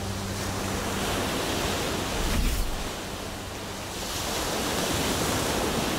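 Ocean surf washing onto a sandy beach, the wave noise swelling and easing, loudest about two and a half seconds in.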